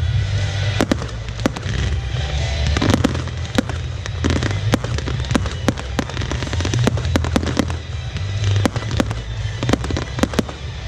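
Fireworks display: ground-fired glitter effects and comets going off in a rapid, irregular string of sharp bangs and crackles, several reports a second.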